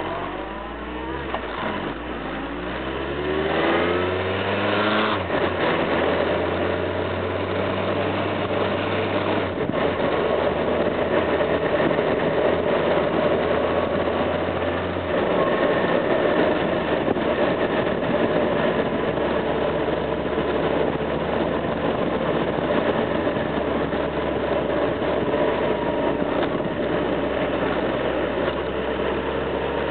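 Motorcycle engine pulling away and accelerating, its pitch climbing over the first few seconds and shifting up through the gears a few times, then running at a steadier cruising pace with wind and road noise.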